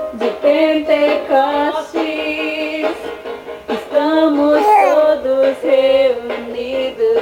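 Recorded song playing, a woman singing a melody over the backing, with a thin sound and almost no bass.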